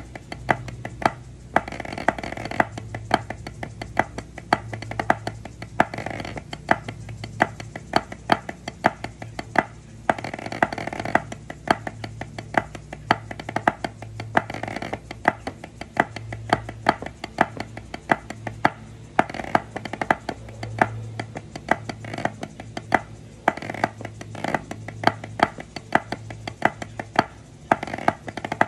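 Drumsticks striking a rubber practice pad in fast rhythmic drum patterns, with a loud accented hit every second or so among quick lighter taps. Faint music plays underneath.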